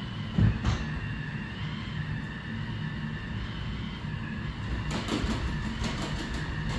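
Robot vacuum-mop running as it mops the floor: a steady motor hum with a faint high whine, and a single knock about half a second in.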